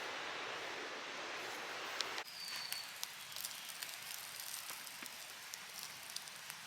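Steady rushing of wind and surf on an open beach that cuts off abruptly about two seconds in. After it come scattered light crackles and ticks over a faint hiss, with a brief high whistle just after the cut.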